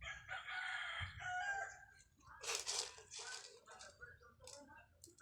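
A rooster crowing once, a drawn-out call of about two seconds, followed a moment later by brief rustling noises.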